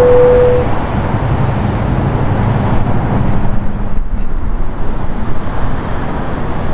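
Steady rushing, rumbling noise of a jet airliner on final approach, with a low hum from its engines in the first few seconds. A short steady beep sounds at the very start.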